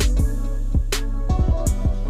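Background music with a beat: a deep held bass note under regular drum hits.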